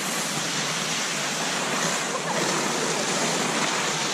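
A steady rushing noise, with a faint short voice-like sound about two seconds in.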